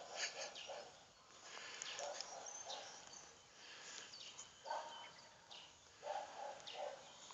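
Dog digging into garden soil with its nose down the hole, snuffling and scratching in short soft bursts about once a second, as it hunts an animal it has scented underground.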